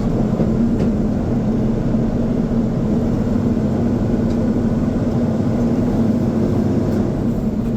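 Diesel engine of a loaded semi grain truck running steadily at an even pitch, heard from inside the cab.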